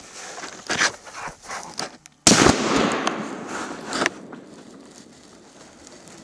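Black bear's fur rubbing and scraping against a trail camera, then a single loud rifle shot a little over two seconds in that dies away with a rolling echo, followed by one sharp knock about two seconds later.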